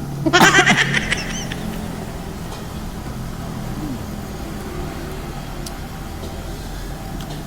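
Steady road-traffic noise from a busy main road, a low rumble of passing vehicles. A brief loud sound breaks in about half a second in.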